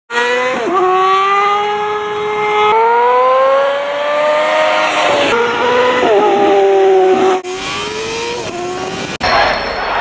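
Sport motorcycle engine revving high under acceleration. Its pitch climbs, with brief dips at the gear shifts, across several short passes spliced together with abrupt cuts. Near the end it gives way to a noisier, rushing sound.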